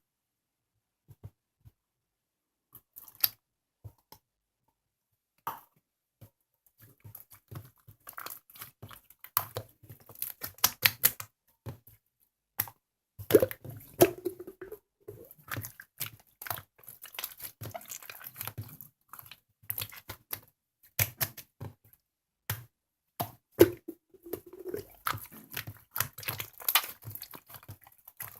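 Hands playing with slime: irregular sticky squishes, clicks and small crackling pops. Sparse at first, then near-continuous from about seven seconds in.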